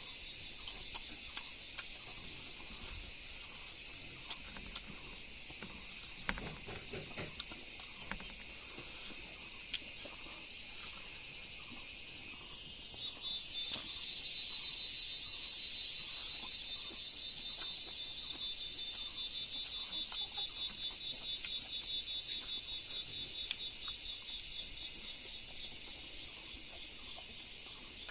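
A steady chorus of crickets and other insects chirping, growing louder about halfway through, with scattered small clicks and taps.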